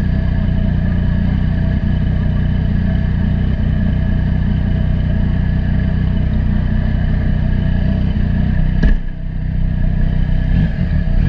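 Yamaha FZ-09's 847 cc inline three-cylinder engine pulling steadily at road speed. About nine seconds in there is a click and the engine note briefly drops, then it climbs again.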